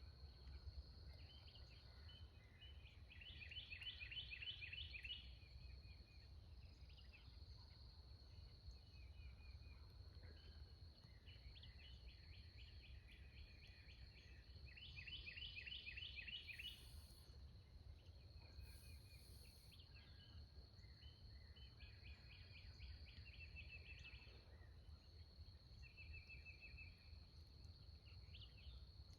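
Faint woodland ambience: songbirds sing short trilled phrases several times over a steady high-pitched insect drone and a low rumble.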